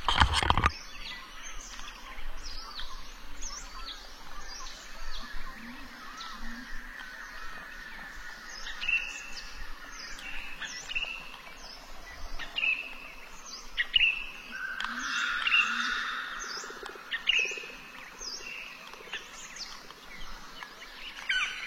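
Small birds chirping over and over in short, high notes, some sweeping downward, with a thump right at the start.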